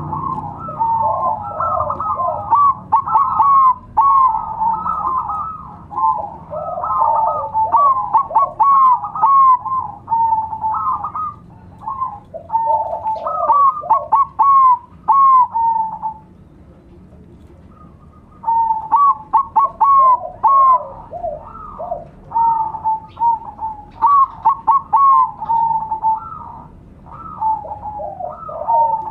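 Several zebra doves (perkutut) cooing at once, their strings of short, quick coo notes overlapping in a busy chorus, with a pause of about two seconds a little past halfway.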